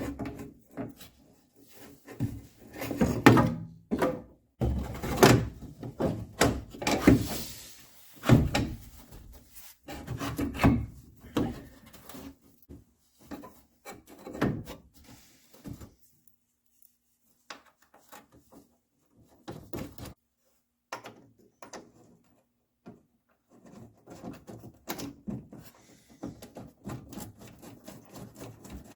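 Car quarter-window assembly parts being handled and fitted together: irregular clunks, knocks and rubbing, with a couple of short pauses past the middle.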